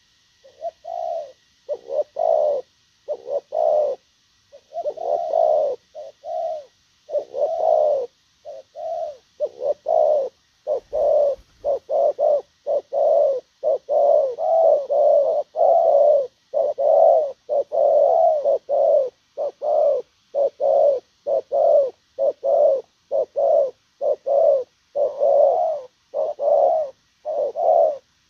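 Spotted dove cooing in a long, unbroken run of short coos, about one and a half a second, loud and close.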